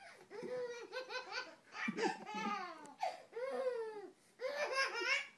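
Baby laughing in about five high-pitched bursts of giggles, each a second or less, with short breaths between them.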